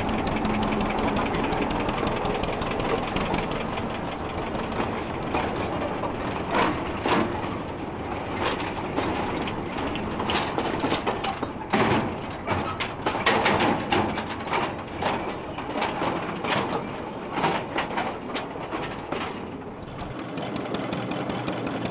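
Ruston narrow-gauge diesel locomotive running on the track, its engine steady underneath a string of sharp metallic clanks and knocks through the middle, typical of wagons and rail joints on the move.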